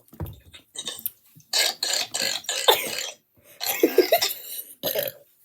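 A person belching: two drawn-out, rough belches, the first starting about a second and a half in and the second about four seconds in, with short gulping bursts around them.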